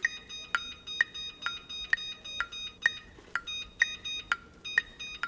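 Electric range's digital oven control beeping in an even series, about two beeps a second, as the oven is set to preheat to 450 °F.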